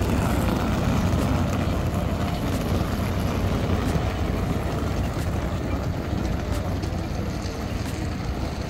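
A boat's engine running steadily with a low hum, under a constant rush of water and wind, as heard on board while underway.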